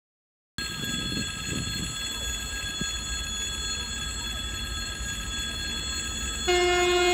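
A steady low rumble with a high whine from an approaching diesel train. About six and a half seconds in, the TEP70 passenger diesel locomotive's horn starts, loud and held as one steady tone.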